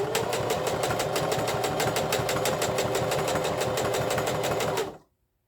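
Electric sewing machine stitching at speed: a steady, rapid run of needle strokes over the motor's hum, loud for a new machine, stopping abruptly about five seconds in.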